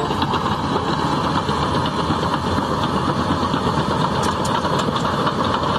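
Large crawler bulldozer's diesel engine running steadily as the blade pushes a mound of dirt, with a few faint clicks about four seconds in.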